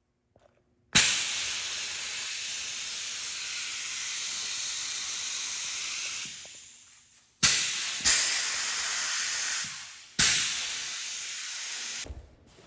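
Compressed air hissing through a pneumatic bait cutting machine's hand control valve as it is switched between positions: a sudden loud hiss about a second in that holds steady for about five seconds, then three more sharp bursts, a short one and two of about two seconds each, each starting abruptly and tailing off.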